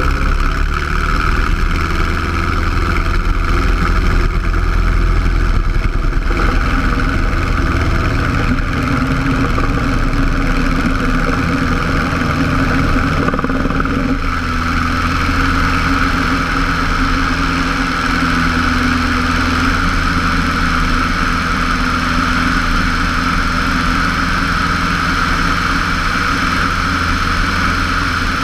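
Cessna 150's four-cylinder Continental O-200 engine and propeller running steadily at full takeoff power, heard from outside the cabin under the wing, during the takeoff roll and lift-off.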